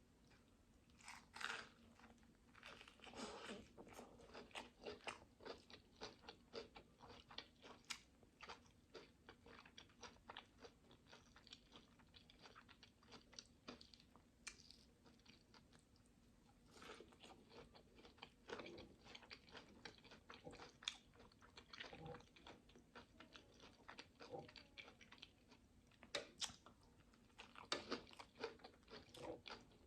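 Quiet, close-miked chewing and biting of food, with many small wet mouth clicks and soft crunches at an irregular pace.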